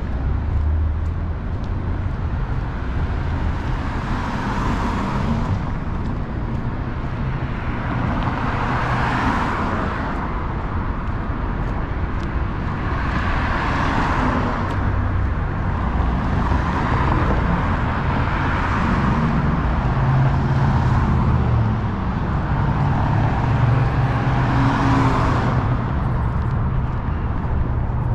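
City street traffic: a steady low rumble with cars passing one after another, about every four or five seconds.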